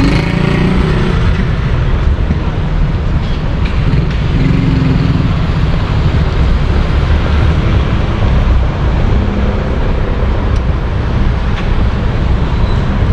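Street traffic: a steady low rumble of cars passing on a busy road.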